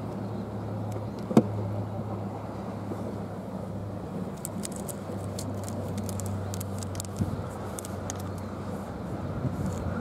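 Steady low hum of an idling engine, with one sharp click about a second and a half in and a scatter of faint light clicks in the middle.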